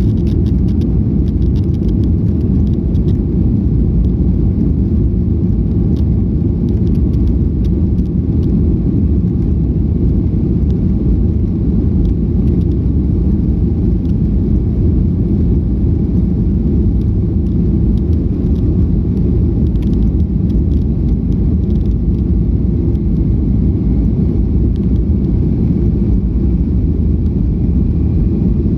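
ANA passenger jet airliner on its takeoff flight: a loud, steady, low rumble that holds unchanged throughout, with faint scattered ticks above it.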